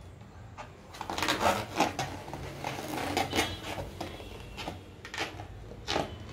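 Small rubber balloon being handled at its neck: rubbery rubbing and squeaks with a flurry of sharp clicks in the first half and a few single clicks later.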